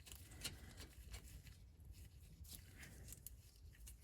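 Near silence with a few faint, irregular clicks of a wrench on the rear brake caliper bolts as they are snugged down.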